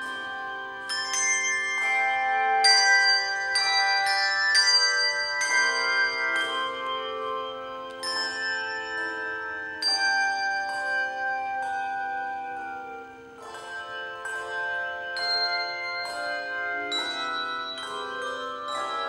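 Handbell choir ringing a melody over chords: each bell struck and left to ring, so the tones overlap. The playing drops to a softer passage about two-thirds of the way through, then builds again.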